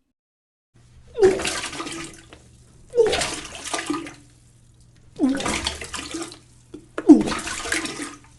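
Vomiting sound effect: four retching heaves, each a short guttural voiced gag followed by a splash of liquid, evenly spaced about two seconds apart.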